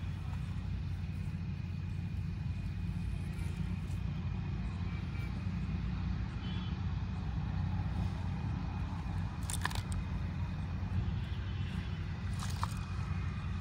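Steady low background rumble with a faint, thin, steady high tone over it, and two brief sharp clicks in the second half.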